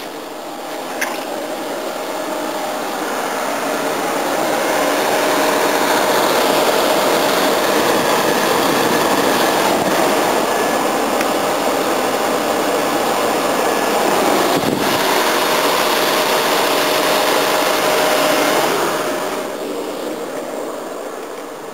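Heat pump running, most likely the old Kelvinator unit: a steady rush of blower-fan air with a faint hum. It grows louder over the first few seconds, holds steady, then fades near the end.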